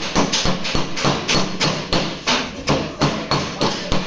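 Steady hammering on the sheet-metal panel of a dented car door, about three blows a second, as the panel is beaten back into shape.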